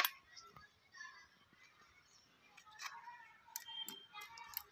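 Mostly quiet, with faint background music. There is a sharp click at the start and a few light clicks near the end, likely a knife touching the steel bowl.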